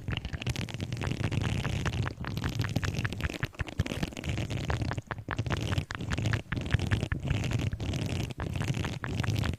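Close-miked object handling: a dense, continuous crackle of small clicks and scratches over a steady low rumble, briefly dropping out a few times.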